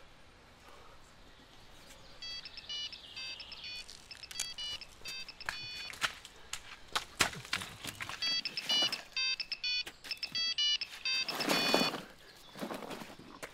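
Mobile phone ringtone: bursts of rapid, high electronic beeps starting about two seconds in, over knocks and rustling as a stick drags a bag across the leaf litter. A louder burst of rustling comes near the end as the bag is lifted.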